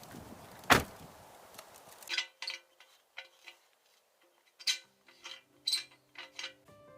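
A single sharp knock, then a scattered series of light clinks and knocks of things being handled, with background music coming in partway through.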